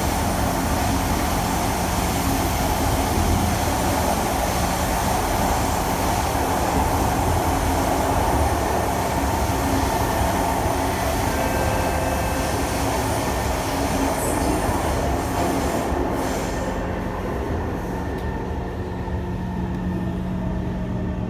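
Cabin noise inside a Kawasaki C151 MRT train running through an underground tunnel: a steady rush of wheel, track and tunnel noise. In the last few seconds the hiss falls away and the sound turns duller as the train slows into a station, leaving a low steady hum.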